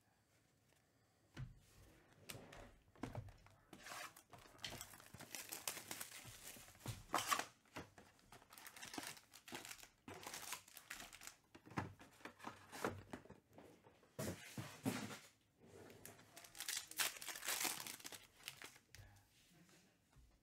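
Plastic trading card pack wrappers being torn open and crinkled, in irregular clusters of rustling and tearing, starting about a second and a half in.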